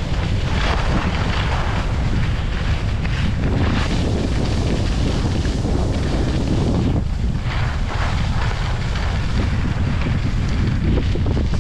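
Wind buffeting the microphone with a heavy, steady rumble as the skier glides downhill, with the skis' edges hissing and scraping on packed snow in repeated surges.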